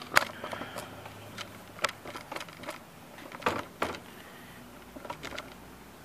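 Irregular clicks and knocks of hard plastic washing-machine parts being handled and fitted back together, the loudest near the start and about two seconds in.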